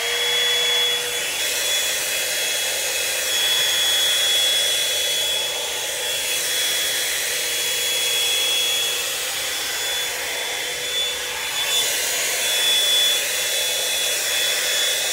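Revlon One-Step Volumizer hot air brush blowing on its cool setting: a steady rush of air with a high, steady motor whine.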